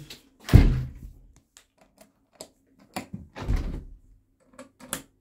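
A series of knocks and clicks: a heavy thump about half a second in, another around three seconds in, and scattered light clicks between.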